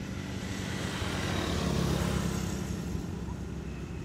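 A motor vehicle passing on a nearby road: engine and tyre noise swelling to its loudest about two seconds in, then fading.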